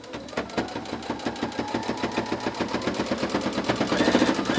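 Baby Lock Jubilant sewing machine stitching binding onto a quilt: a rapid, steady rattle of needle strokes, about ten a second, over the motor's whine, growing louder near the end.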